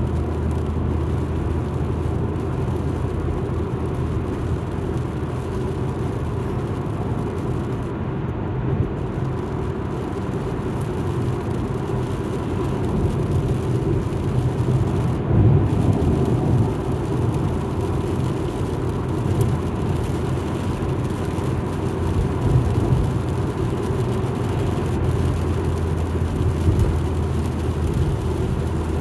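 Alfa Romeo MiTo driving along: a steady low drone of engine and road noise, with a few brief swells.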